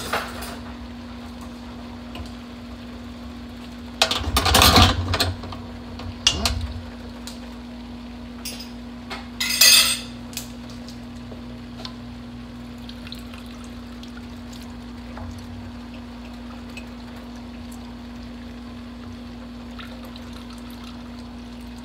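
Kitchen handling noises: a few short bursts of clatter and knocking as bottles, utensils and containers are handled at the counter, the loudest about four seconds in and again near ten seconds. A steady low hum runs underneath.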